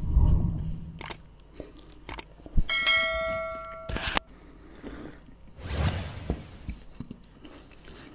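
A click, then a bright bell ringing for about a second and a half that cuts off suddenly: a notification-bell sound effect of the kind laid under an animated subscribe button. Around it, low rumbling handling and chewing noises on a clip-on microphone.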